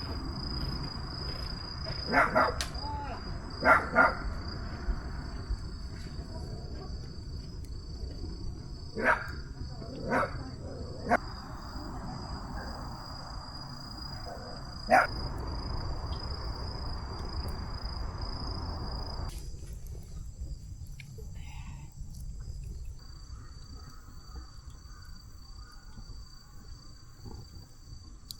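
Crickets trilling steadily, with about six short calls from a dog scattered through the first fifteen seconds. A low rushing noise underneath cuts off suddenly about nineteen seconds in.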